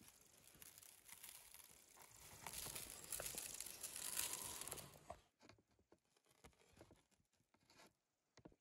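Salt sprinkled by hand onto skewered cubes of raw lamb fat on a wooden tray: a soft, fine pattering hiss that builds and then stops suddenly about five seconds in, followed by a few faint ticks.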